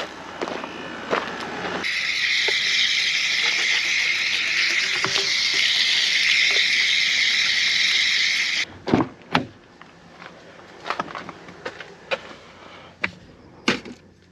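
Water running hard from an outdoor spigot onto a frying pan as it is rinsed, the steady spray starting abruptly about two seconds in and shutting off about seven seconds later. Scattered knocks and taps follow.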